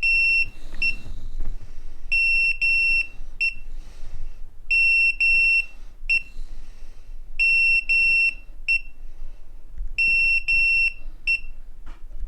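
Segway electric scooter beeping a warning: a high beep in groups of two beeps and a short third, repeating about every two and a half seconds. It is the fault alarm for its error code 21 (no internal battery), which the owner puts down to a fried electronic control module.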